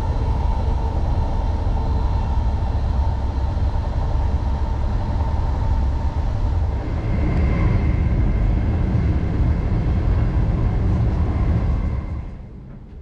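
Interior running noise of an SNCB M7 double-deck electric train in motion: a steady low rumble from wheels and track with a faint whine above it, which rises higher in pitch partway through. The noise drops away sharply about twelve seconds in.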